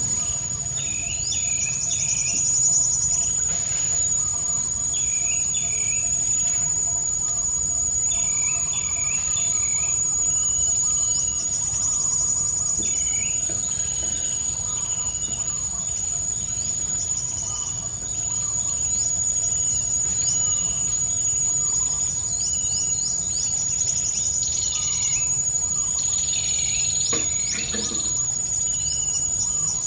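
A steady, high-pitched insect drone, with birds chirping in short phrases every few seconds.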